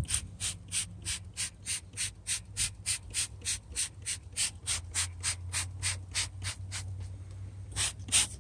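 Hand trigger spray bottle squirting diluted degreaser in quick, even pumps, about three hissing squirts a second, pausing briefly near the end before starting again.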